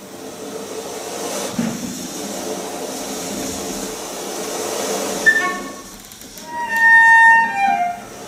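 Contemporary chamber music for cello and organetto. First comes a grainy, noisy bowed cello texture. Then, about five seconds in, high held tones enter, loudest near the end, where two of them glide downward in pitch before cutting off.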